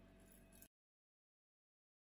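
Silence: a faint fading room tone in the first moment, then the sound track drops to dead digital silence.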